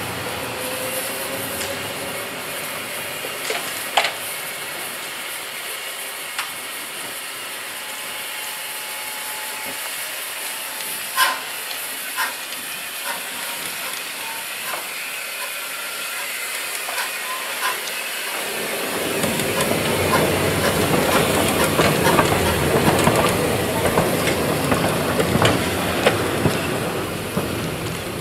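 Steam locomotive No. 4 Loch hissing steam, with a few sharp clicks. About two-thirds of the way through, a louder, fuller hiss rises and holds.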